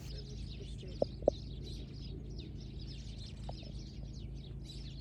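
Small birds chirping and twittering, many faint overlapping high calls over a low steady background hum, with two short louder sounds about a second in.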